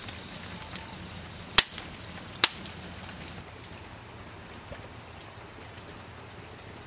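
Wood fire in a campfire stand crackling, with sharp loud pops about one and a half and two and a half seconds in and lighter ticks between them.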